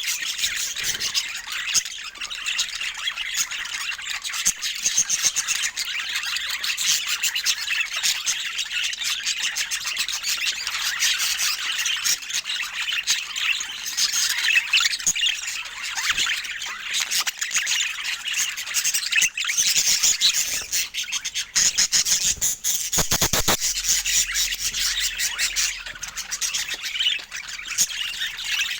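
Budgerigars chattering and warbling continuously, a dense stream of rapid chirps, squawks and twittering calls. Near the end of the first minute-half there is a brief low rumble under the calls.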